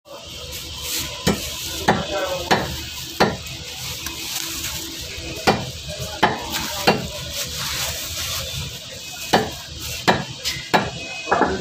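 Fish being scaled and cut on a boti, the curved blade fixed upright on a wooden block. About a dozen sharp scraping strokes, irregularly spaced, come over a steady rasping noise.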